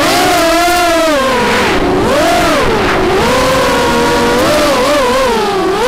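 Cobra 2204 2300KV brushless motors of an FPV racing quadcopter whining, heard from the onboard camera. The pitch swings up and down every second or so as the throttle changes.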